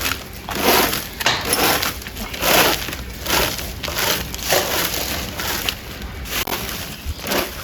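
Dry twigs and garden debris crunching and crackling as they are picked up and handled, in repeated bursts about once a second.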